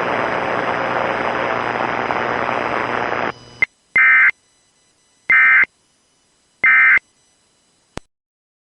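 Broadcast hiss with a low hum for about three seconds, cut off with a click. Then come three identical short, buzzy Emergency Alert System data bursts about a second apart: the end-of-message code that closes the alert. A single click follows near the end.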